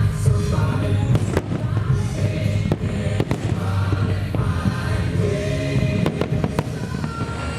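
Fireworks shells bursting with sharp bangs and crackles, scattered in clusters, over loud show music with a choir singing.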